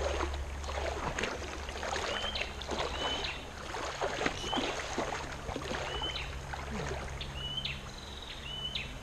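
River water sloshing and splashing as a person wades and swims through a pool. From about two seconds in, a bird repeats a short call with a quick upward flick, roughly once a second.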